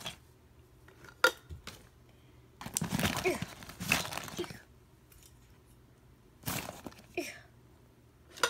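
Phone chargers being pushed by hand into a fabric bag's zippered pocket: cloth and plastic rustling in two bursts, with a sharp click about a second in.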